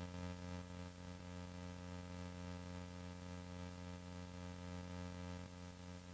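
A steady, unchanging hum made of several tones stacked together. It sounds like electrical hum or buzz on the recording rather than any sound from the game.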